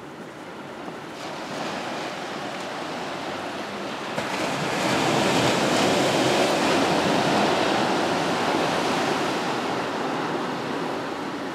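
Ocean surf: the rushing wash of a wave that swells to its loudest about halfway through, then slowly subsides.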